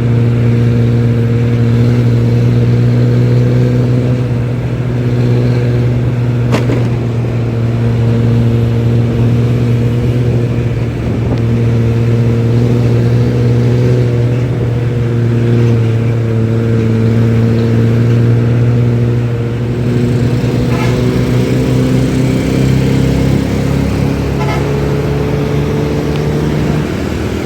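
Nissan-chassis bus's diesel engine running hard through its loud aftermarket exhaust, a deep steady growl. The engine note holds level, then climbs in pitch over the last several seconds as it revs up.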